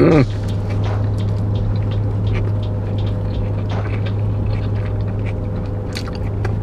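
Steady low hum of a running car heard from inside the cabin, with small scattered mouth clicks and smacks of people chewing sandwiches. A short falling 'mm' from a voice right at the start.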